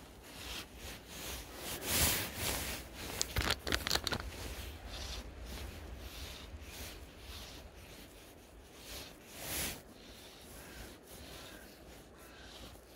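Irregular rustling and rasping close to the microphone as a gloved hand handles the fly rod and strips in fly line, with clothing rubbing. It is loudest in the first four seconds, with another short burst near ten seconds, then settles to a low rustle.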